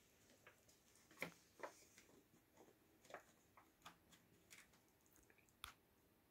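Faint, irregular wet clicks and smacks of kittens licking and grooming one another, a dozen or so small ticks spread unevenly, with a few sharper ones.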